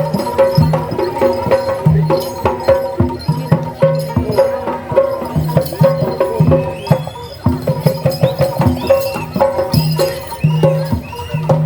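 Live East Javanese jaranan ensemble music: drums and gong-chimes playing a steady, repeating pattern of low and mid notes, with many sharp percussive strokes. In the second half, short high notes rise and fall above the ensemble.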